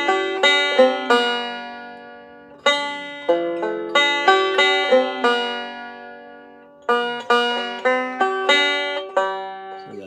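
Five-string banjo picked slowly through a melody phrase in C, single plucked notes ringing out over a D minor chord shape. The notes pause and die away twice, about two and six seconds in.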